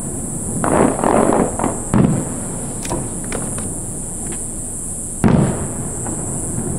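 Aerial fireworks shells bursting, with two loud booms about three seconds apart. Before the first there is a rumble of smaller bursts, and a few faint pops come in between.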